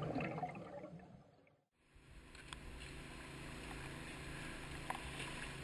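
Muffled underwater water noise that fades out over about a second and a half. After a moment of silence, outdoor shoreline ambience follows, with a steady low hum and a few faint clicks.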